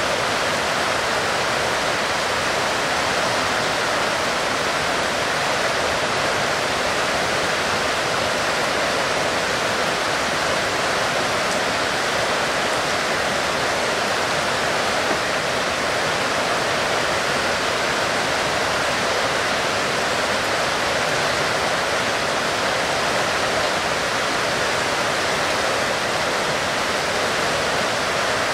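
Heavy rain falling in a dense, steady hiss that does not change.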